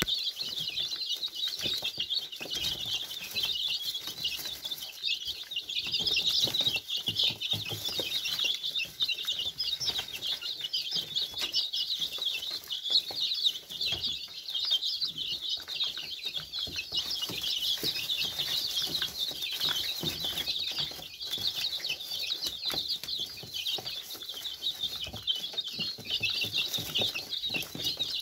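A flock of four-week-old chicks peeping continuously, many high chirps overlapping, with frequent small taps of beaks pecking feed from a plastic trough feeder.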